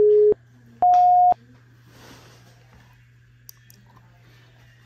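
Countdown beeps: a short low beep, then a single higher-pitched beep about a second in marking "go", in the style of a race-start countdown. A faint steady hum follows.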